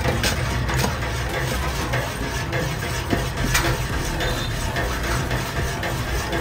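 Buko sherbet mixture being stirred by hand in its container, with small scraping and clinking sounds, over a steady low hum of street traffic.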